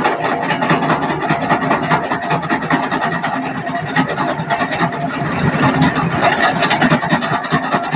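Kobelco SK380XD excavator's diesel engine and hydraulics working under load as the loaded bucket swings over a dump truck, a steady fast, even rasping clatter.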